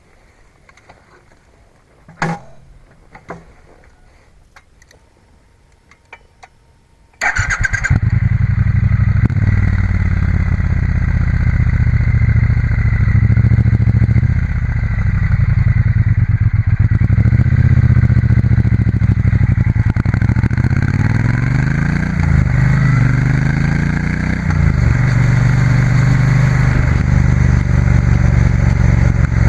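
A few faint clicks, then about seven seconds in a 2016 Triumph Bonneville T120's 1200 cc parallel-twin engine starts and runs through its standard factory silencers, the revs rising and falling.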